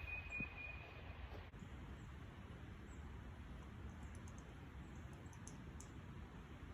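Quiet outdoor ambience: a low steady rumble, a brief thin high tone in the first second, and scattered faint high clicks in the second half.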